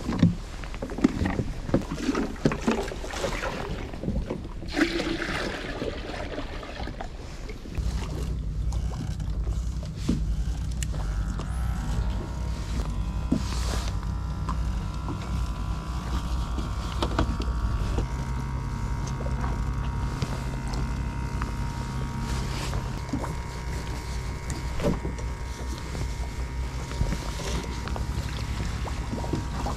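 Knocks and clatter of buckets and gear being handled on a small boat's deck. From about eight seconds in a steady low hum takes over, with a few held tones above it that change twice.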